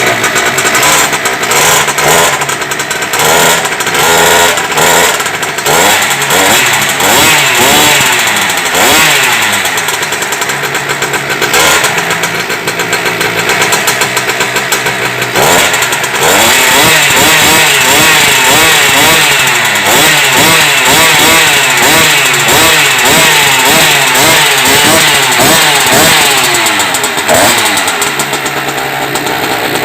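Small two-stroke engine of an EVO stand-up scooter revving again and again through an expansion-chamber pipe with silencer, its pitch rising and falling in quick blips.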